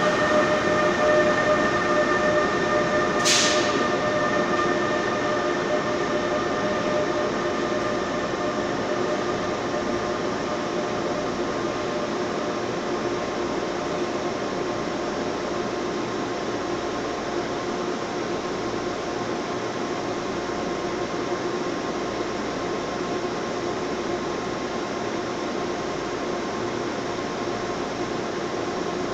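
An electric passenger train pulling out of an underground station, its running noise easing over the first several seconds. A steady mechanical hum with several held tones stays after it has gone, and there is a short hiss about three seconds in.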